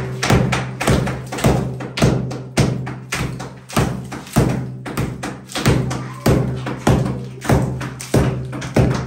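Repeated hammer blows on a plastered wall, knocking the old plaster off, at about two strikes a second. Music plays underneath.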